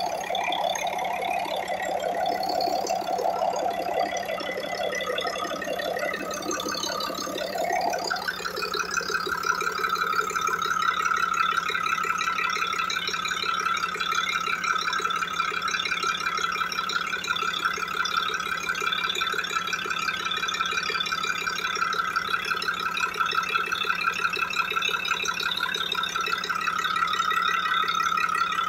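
Diesel engine running with a steady mechanical rattle over a constant low hum. A whining tone in the noise climbs sharply to a higher pitch about eight seconds in and stays there.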